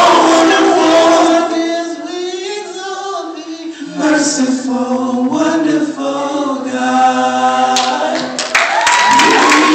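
Male vocal quartet singing in close harmony without instruments. Loud at first, they drop to a softer passage of long held chords, then swell back up near the end.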